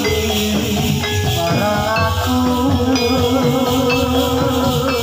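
Live Javanese gamelan music accompanying a jathilan horse-trance dance: many pitched instruments playing overlapping held notes, with a wavering melody line near the middle, over a constant rattling shimmer.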